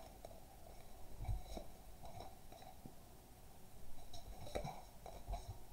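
Faint rustling and a few light taps of tarot cards being drawn and laid down.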